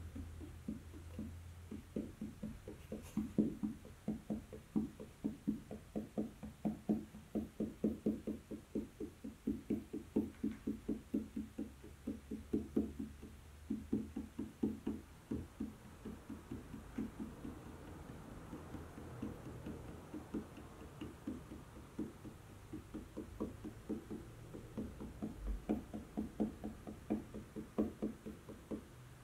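Felt-tip marker tapping dots onto paper on a table: a long run of quick taps, about three a second, with a few short pauses.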